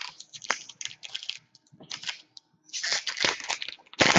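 Crinkling and tearing of a foil trading-card pack wrapper as it is ripped open and handled, in ragged bursts that are heaviest about three seconds in and near the end, with a sharp snap of a card about half a second in.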